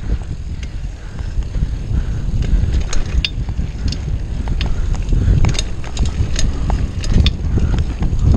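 Mountain bike rolling fast over a bumpy dirt trail: a heavy low rumble of wind buffeting the microphone and tyres on dirt, with sharp clicks and rattles from the bike at irregular intervals, several in the second half.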